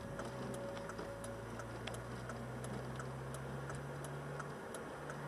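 Inside a car while driving: a steady low engine and road hum, with faint regular ticking about twice a second.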